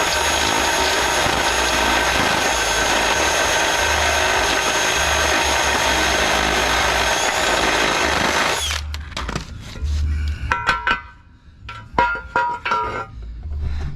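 Power grinder running steadily against metal for about nine seconds, grinding down a raised corner so a bracket can sit flush, then cutting off. Several sharp knocks and metallic clinks follow.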